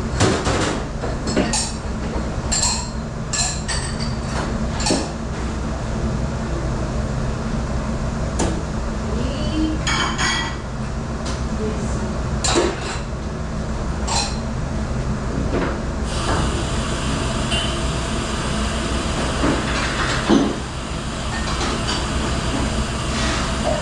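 Dishes and cutlery clinking and knocking as they are handled in a commercial dish room, over a steady low machine hum.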